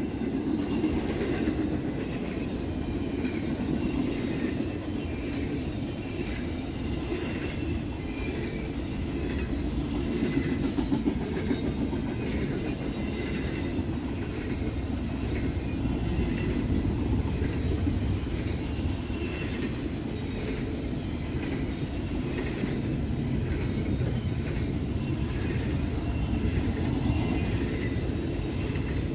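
Freight train rolling past at steady speed: the cars rumble along with a run of wheel clicks over rail joints and a faint wheel squeal.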